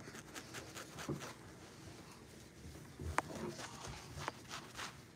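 Faint scattered light clicks and taps over low room noise, with one sharper click about three seconds in.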